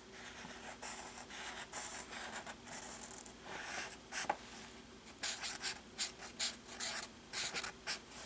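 Marker pen drawing on paper: a run of longer scratchy strokes as a zigzag line is drawn, then quicker short strokes from about halfway as letters are written.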